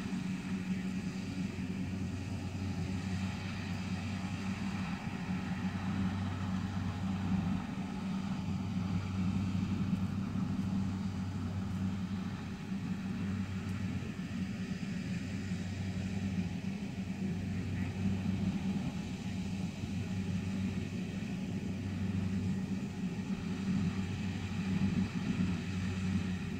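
Kubota DC-70 rice combine harvester's diesel engine running at a steady working speed as the machine harvests, heard as an unbroken low hum.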